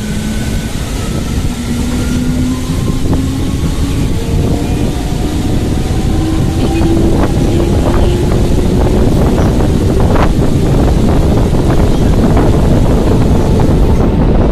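Electric multiple-unit local train gathering speed: a whine from the traction motors rises steadily in pitch over heavy wind and running noise. Wheels click over rail joints and points in the middle of the stretch, and wind buffets the microphone at the open door.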